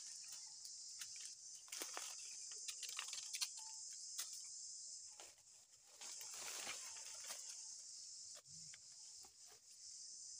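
Steady high-pitched buzzing of insects, with scattered crackles and rustles of dry fallen leaves.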